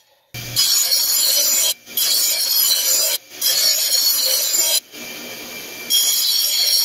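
A bench grinder's wheel grinding the edge of a steel mower blade to sharpen it: a loud, hissing grind that starts about a third of a second in. It breaks off briefly three times, about a second and a half apart, and is quieter for about a second around five seconds in.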